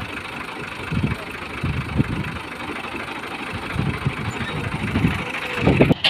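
Tractor diesel engine running at a steady speed, driving a wheat thresher through its PTO shaft and belts, with irregular low thumps throughout.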